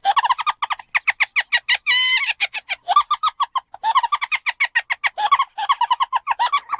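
High-pitched, sped-up cartoon giggling, like a crowd of Munchkins: rapid runs of 'hee-hee' pulses, about eight to ten a second, broken by short pauses, with a brief held squeal about two seconds in.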